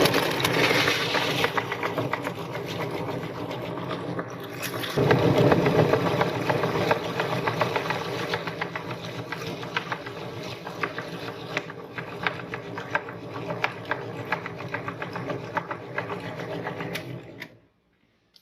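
Electric meat grinder running with a steady motor hum, crackling and crunching as something is forced through it. It grows louder about five seconds in, and the motor shuts off shortly before the end.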